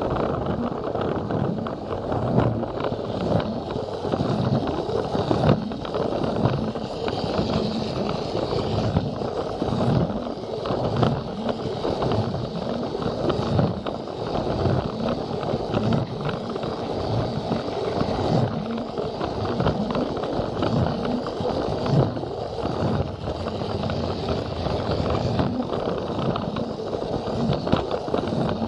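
Plarail battery-powered toy train running along plastic track, heard from a camera riding on the train: a continuous rattle of the motor and plastic wheels, with frequent small clicks over the track joints.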